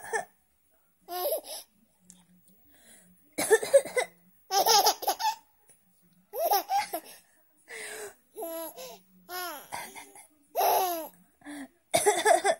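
A baby laughing in repeated high-pitched bursts, set off by an adult's coughing.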